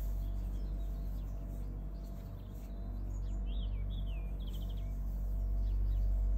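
Background music: a sustained deep bass drone with held notes, and a few short high chirps about three to four seconds in.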